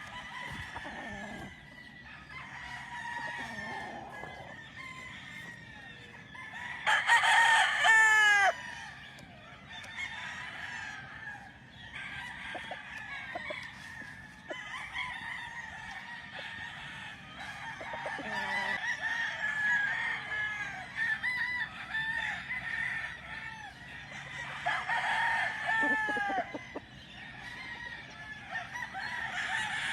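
A flock of chickens clucking and calling almost without pause, with roosters crowing over them: a loud crow about a quarter of the way in, another about five-sixths of the way through, and a third starting at the very end.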